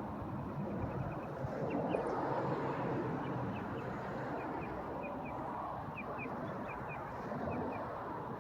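Steady rushing background noise, with a small bird chirping in quick pairs over and over.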